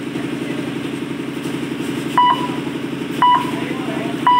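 A steady, fast-pulsing engine drone, with three short electronic beeps about a second apart starting about halfway through, the beeps the loudest thing heard.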